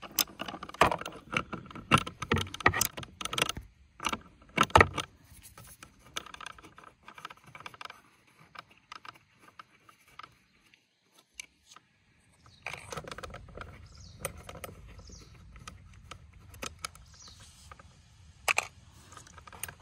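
Socket ratchet clicking and small metal nuts being unscrewed and handled on a robotic lawnmower's blade disc: irregular sharp metal clicks and rattles, busiest in the first five seconds. Sparse handling clicks follow over a faint steady hiss.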